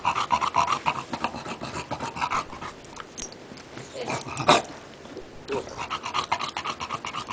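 English bulldog panting rapidly and noisily. About four seconds in the panting pauses, broken by one short, loud sound as the dog mouths its plush toy, then the panting resumes.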